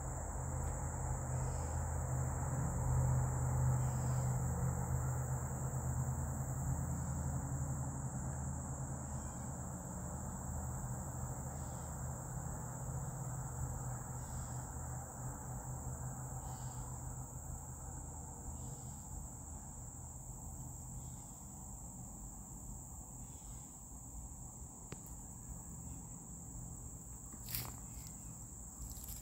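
Steady, high-pitched chorus of insects such as crickets, under a low rumble that is strongest in the first few seconds and then fades. A single sharp click comes near the end.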